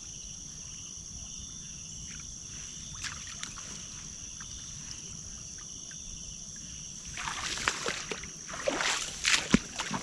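Water sloshing and splashing from about seven seconds in, with a few sharp knocks, over a steady high-pitched hum in the background.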